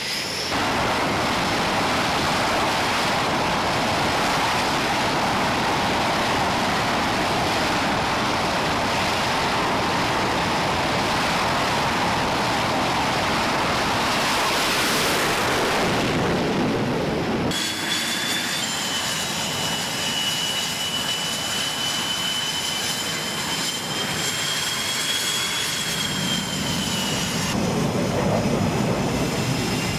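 Jet aircraft engine noise: a steady rushing roar, then after an abrupt cut about two-thirds of the way through, a quieter run carrying a high, steady turbine whine.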